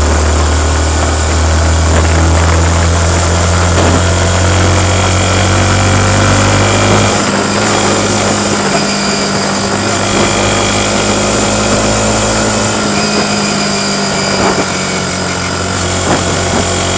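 Yamaha MT-15's 155 cc liquid-cooled single-cylinder four-stroke engine, on its stock exhaust, running steadily while the bike is ridden. Its deep note changes about seven seconds in and again about thirteen seconds in.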